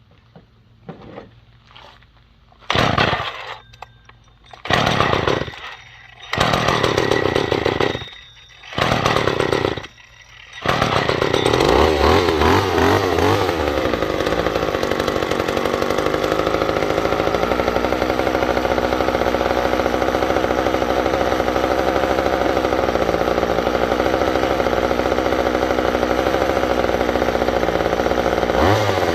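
McCulloch two-stroke chainsaw being pull-started with its carburettor screw set one turn out: it fires briefly and dies several times, then catches about ten seconds in and keeps running steadily.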